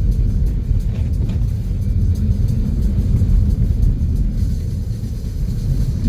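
Steady low rumble of a vehicle driving over a snow-covered road, heard from inside the cabin.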